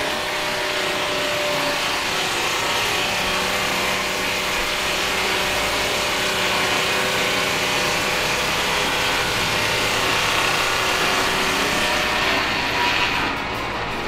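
Fully electric Peterson ASM automated swingblade sawmill cutting through a gum log: a steady sawing noise from the circular blade, with a faint motor hum beneath. The sound drops a little near the end.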